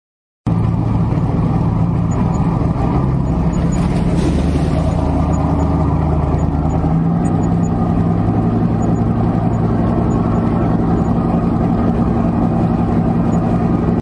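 Diesel engines of several tandem road rollers running steadily while they compact fresh asphalt. The sound starts suddenly about half a second in and holds at an even level.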